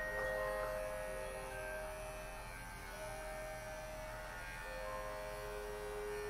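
Soft background music of long held notes that change pitch every second or two, over a low steady hum.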